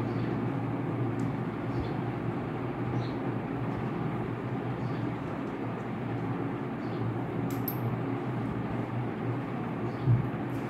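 Steady low background rumble, with a few faint light ticks and a single dull thump near the end.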